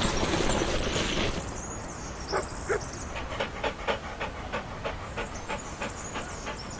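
Dog panting in quick, even breaths, about three to four a second, starting a couple of seconds in after a brief rush of hiss.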